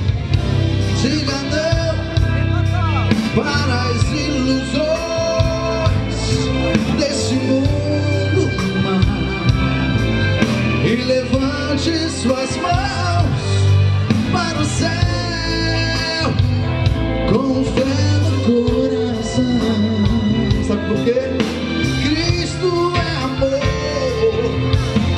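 Live band playing amplified through the stage sound system: a male voice singing over drum kit, bass guitar, electric guitar and keyboard, with a steady drumbeat.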